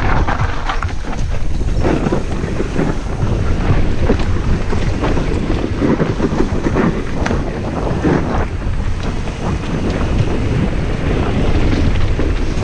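Mountain bike descending a rough singletrack at speed: wind buffeting the microphone over the rumble of tyres on dirt and stones, with frequent knocks and rattles from the bike.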